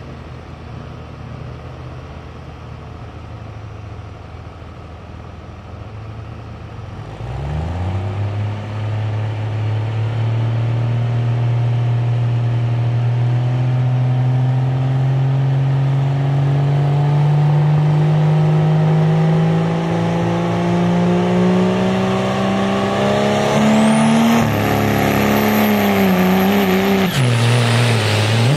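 Truck engine at a truck pull, idling at first, then revving up sharply about seven seconds in and running hard under heavy load, its pitch climbing slowly for over fifteen seconds as it drags the sled. A high whine rises near the end, then the engine drops off sharply.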